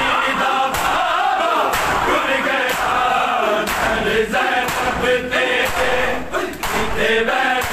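A crowd of men chanting a Shia noha together, with loud sharp slaps of hands beating on bare chests (matam) about once a second in time with the chant.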